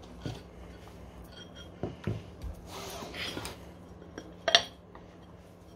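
Metal tools and parts being handled: scattered clinks and clicks, a short scraping stretch in the middle, and one sharp, loud metallic clink about four and a half seconds in.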